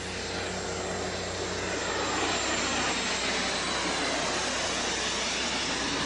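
Coast Guard aircraft flying low overhead: its engine noise swells over the first couple of seconds, then holds steady and loud.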